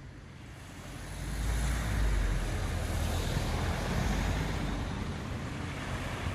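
Sea surf washing on the shore with wind buffeting the microphone, a deep rumble that swells about a second in and stays.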